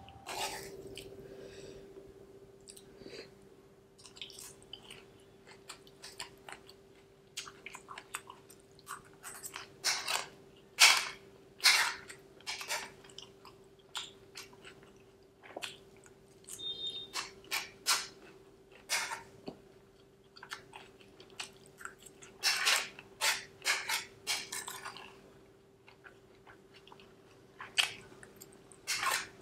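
Close-miked chewing of a mouthful of spicy fried rice with raw onion slices: wet crunches in quick clusters, with pauses between. A faint steady hum runs underneath.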